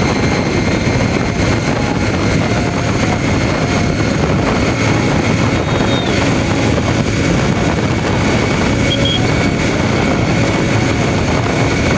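Motorcycle cruising at steady highway speed: a constant rush of wind on the microphone mixed with the engine running.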